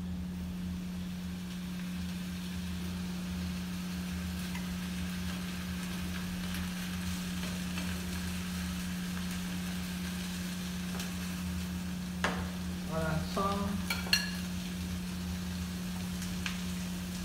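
An egg frying in butter in a skillet, sizzling steadily over a constant low hum. A couple of sharp clicks near the end, the utensil knocking against the pan.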